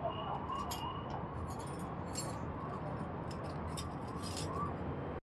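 Light metallic clinks and rattles of hand tools and small parts being handled, over a steady background rumble with faint wavering tones.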